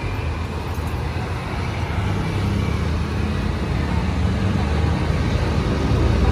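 Road traffic with a vehicle engine approaching, its low hum growing steadily louder.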